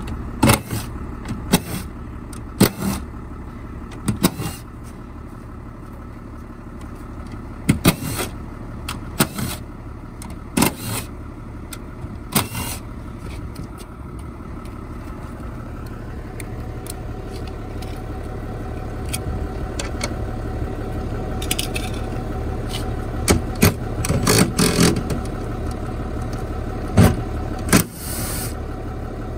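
Sharp metallic clinks and knocks from a cordless drill, sockets and bolts being worked on the aluminium cover of a Tesla Model 3 battery pack, scattered irregularly, over a steady low rumble.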